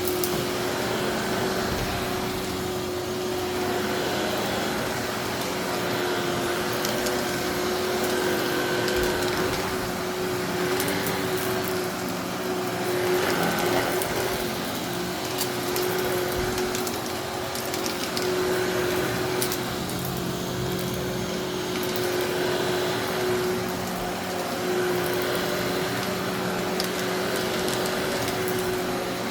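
Eureka Innova NEU700 upright vacuum running steadily with a constant motor whine, its brushroll picking up aquarium gravel from carpet with scattered clicks and crunches of small stones.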